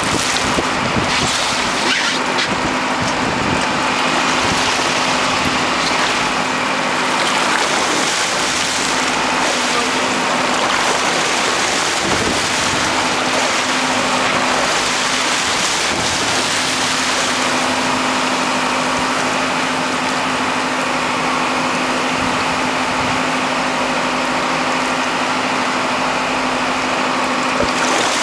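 A boat's engine running steadily, a constant low hum under a wash of wind and sea noise.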